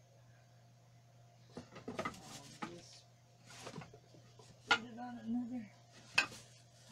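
A few sharp clicks and knocks of things being handled on a table, the loudest two a little before and a little after the five-second mark. Just after the first loud knock comes a short, low hum from a voice.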